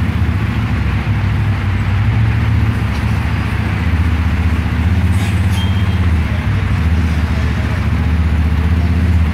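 Can-Am ATV engine pulling under gentle throttle as the machine climbs aluminium loading ramps into a pickup bed. The engine note comes up right at the start and then holds steady.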